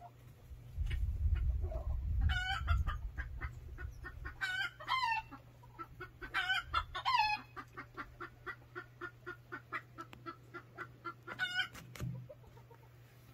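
Chickens clucking in the background: several louder, longer calls, then a run of quick clucks at about three to four a second. A low rumble runs under the first few seconds.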